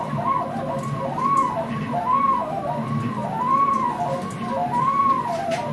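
Stepper motors of a CNC router whining as the machine traces a round pocket with no cutting. The pitch rises and falls in repeated arcs as each axis speeds up and slows down around the circles.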